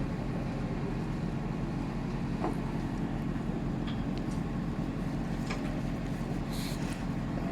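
A heavy vehicle engine running steadily with a low hum, with a few faint clicks over it.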